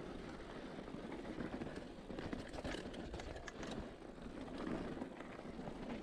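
Cannondale SL4 Trail mountain bike rolling down a rough dirt trail: a steady rumble of tyres on dirt and stones with the chain and frame rattling, and a cluster of sharp clatters about two and a half to three and a half seconds in.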